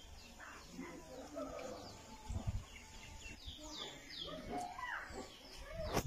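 Small birds chirping in short downward-sweeping calls, busiest in the second half, with a few dull low thumps.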